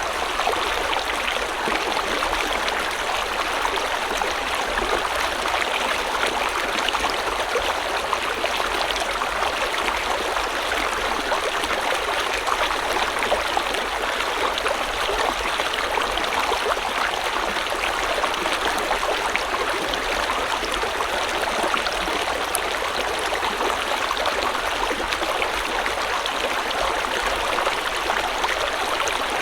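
Water of a river or stream flowing steadily over rocks, an even rushing with fine gurgling detail.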